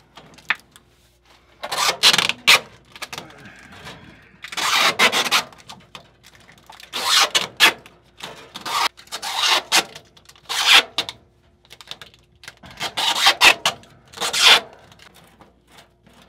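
Foil tape being worked by hand around the joints of a rigid aluminium dryer duct: about six noisy bursts of rubbing, each a second or so long, with short pauses between.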